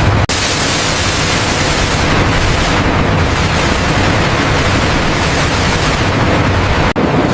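Water jets spraying and pouring into a wool-washing tank of churning water: a loud, steady rush of noise, broken briefly about a quarter second in and again near the end.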